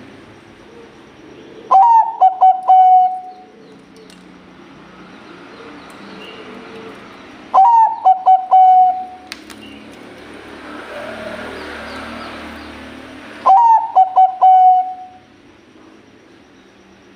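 Bangkok-strain zebra dove (perkutut) singing its cooing song three times, about six seconds apart. Each phrase opens with a rising note followed by a quick run of short notes, and lasts about a second and a half.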